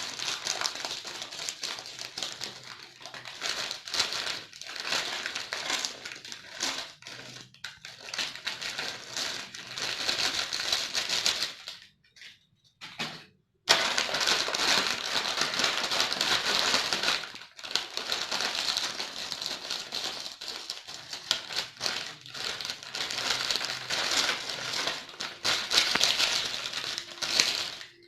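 Potato chips crunching and crinkling close to the microphone in a dense, crackling run. It breaks off for about a second and a half midway, then resumes.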